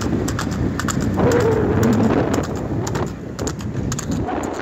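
Hooves of a galloping water buffalo beating quickly on an asphalt road as it pulls a light racing cart. Several sharp strikes a second sound over a steady rushing noise.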